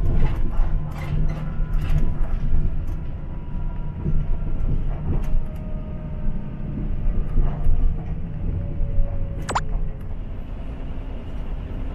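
Shuttle bus in motion, heard from inside the cabin: a steady low engine and road rumble with clicks and rattles, and a brief high squeak about nine and a half seconds in.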